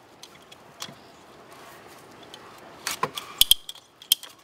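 Ratcheting PVC pipe cutter closing on the spa's plumbing pipe: a quiet stretch, then a few sharp clicks of the ratchet from about three seconds in.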